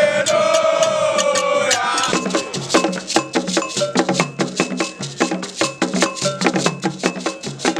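Music with a brisk, even beat of shaker and woodblock-like percussion over a steady bass line. A long held melodic note opens it and gives way to the percussion about two seconds in.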